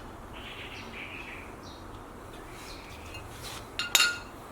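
A single sharp metallic clink about four seconds in, ringing briefly, as steel parking brake shoe hardware (springs, shoes, adjuster) is handled; otherwise a low, steady background.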